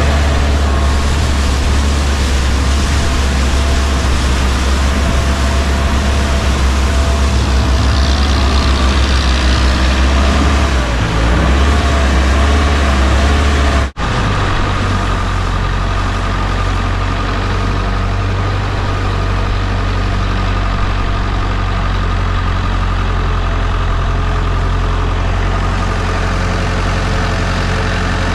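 Longtail boat's engine running steadily underway, a loud, constant drone. About halfway it cuts out for an instant and resumes at a slightly lower pitch.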